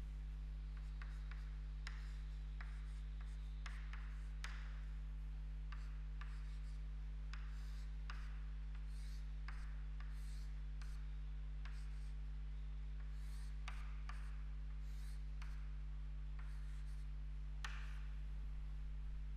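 Chalk writing and drawing on a chalkboard: short, irregular scratchy strokes and taps as numbers, letters and arrows are drawn, over a steady low electrical hum.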